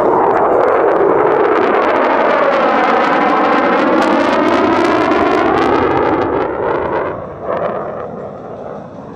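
Loud jet noise from a Boeing EA-18G Growler's twin General Electric F414 turbofans as it makes a close pass, with a phasing sweep through the noise as it goes by. The sound drops away about seven seconds in as the jet pulls away.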